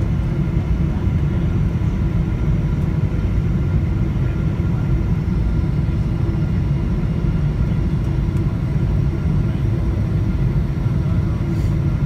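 Steady cabin noise of a Boeing 777-300ER descending on approach: a low, even rumble of its GE90 engines and the airflow, with a few faint steady whine tones above it. It is heard from a window seat beside the engine.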